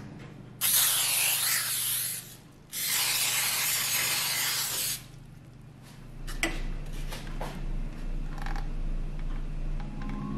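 Aerosol cooking spray hissing into a metal cake pan in two long bursts, followed by a few light taps.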